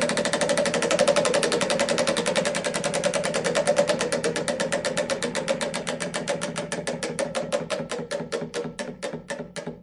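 Roulette wheel spinning down: a fast, even clicking that gradually slows and fades to about three or four clicks a second near the end.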